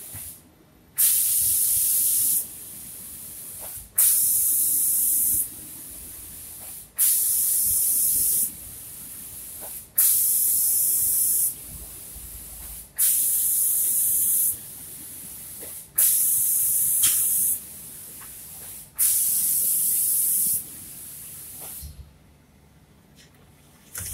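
Automatic painting machine's spray gun spraying a finish coat, its hiss switching on and off in seven bursts of about a second and a half, one every three seconds, with a fainter steady hiss between them. The bursts stop near the end.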